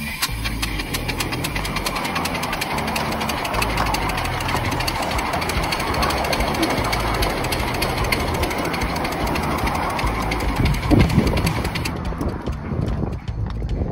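7¼-inch gauge Romulus live-steam locomotive running along the track, heard from the footplate: a rapid, even beat of clicks over a steady rush, swelling briefly louder about eleven seconds in.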